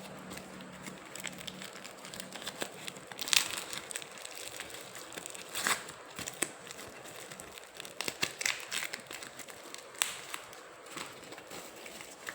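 Parcel packaging being opened by hand: irregular crinkling and crackling with some tearing, loudest about three and a half seconds in and again near six seconds.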